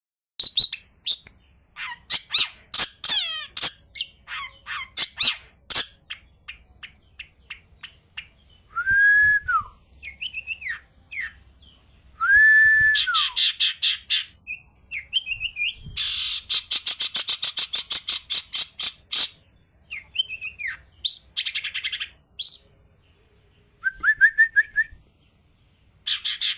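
A pet bird calling: runs of sharp chirps and clicks, a few clear whistles that rise and fall, and several bursts of rapid buzzy trills lasting a second or more, with short pauses between.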